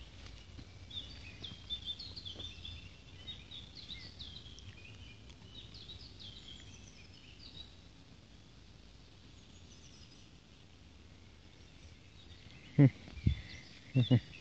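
Small songbirds chirping in quick, rising and falling notes, busiest in the first half and again near the end. A few dull low thumps near the end are the loudest sounds.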